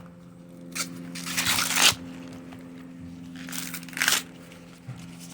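Husk leaves being torn off an ear of sweet corn by hand: two long, crackly tearing pulls, the first about a second in and the louder, the second about two seconds later.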